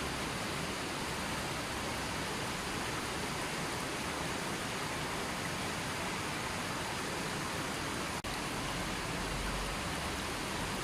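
River water flowing, a steady unbroken rushing. It cuts out for a split second about eight seconds in, then carries on as before.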